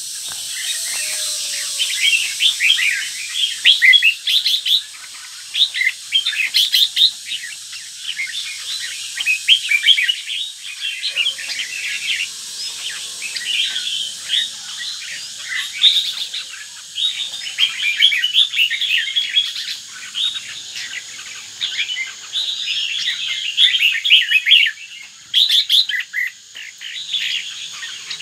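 Caged red-whiskered bulbul of the northern Vietnamese type singing: quick strings of chirping, warbling notes with only short pauses.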